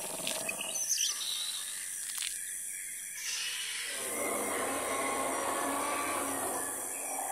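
Outdoor nature ambience: a few quick bird chirps over a steady high hiss, with a broad rushing noise swelling up about four seconds in.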